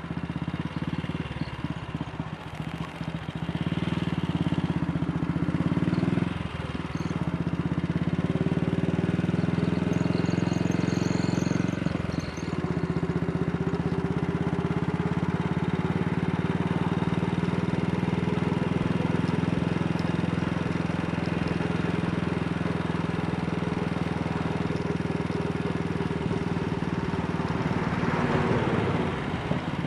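AJS Model 8 single-cylinder motorcycle engine pulling away and accelerating up through the gears. The engine note is quieter at first and then grows louder. There are two short breaks for gear changes, about 6 and 12 seconds in, and the pitch rises again after each.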